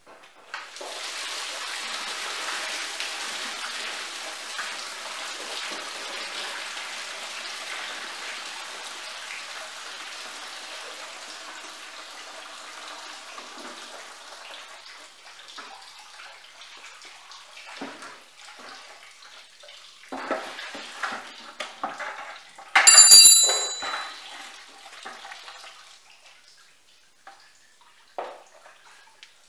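Engine coolant pouring from the Farmall 560's lower radiator hose outlet into a plastic bucket as the radiator is drained. The stream starts about a second in and slowly tapers off over some fifteen seconds. It is followed by scattered knocks and one loud ringing metal clank about 23 seconds in.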